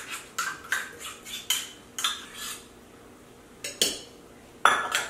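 A metal utensil scraping and tapping dressing out of a stainless-steel measuring cup over a slow cooker: a run of sharp clinks about two a second, a pause, then two more clinks near the end.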